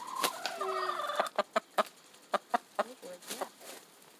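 Hens clucking and squawking for about the first second, then a run of sharp, irregular taps.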